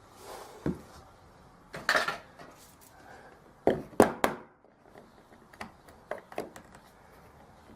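Metal door-handle hardware and hand tools being handled, giving a string of sharp clinks and knocks, the loudest three in quick succession about four seconds in, then a few lighter clicks.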